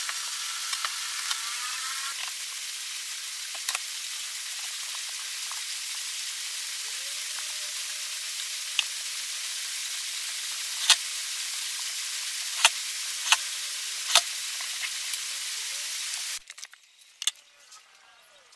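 A steady, even hiss with a few sharp clicks scattered through it. About sixteen seconds in, the hiss cuts off abruptly, leaving near quiet with a few light ticks.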